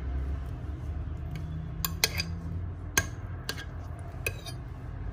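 Metal spoon clinking against the pan as it stirs and scoops a saucy chicken stew: about six sharp clinks in the second half, over a low steady hum.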